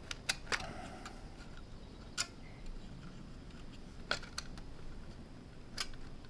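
Scattered small clicks and taps of plastic charger parts being handled and fitted together, about six sharp clicks over a few seconds, as the side covers and casing of the charger go back on.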